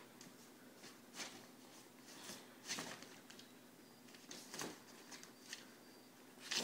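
Faint, scattered scuffs and rustles, about half a dozen brief ones, from pets moving about on a wooden floor.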